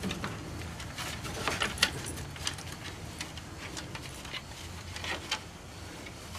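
Basset hounds' claws and paws scrabbling and knocking on a wooden table top: a string of irregular clicks and light knocks, loudest a little under two seconds in.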